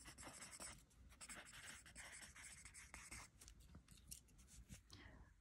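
Faint, irregular scratching of handwriting on lined notebook paper as a line of notes is written out.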